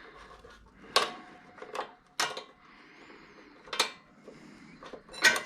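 Sharp metallic clicks and clinks of hand tools and small engine parts being handled, about five separate ones spread over a few seconds.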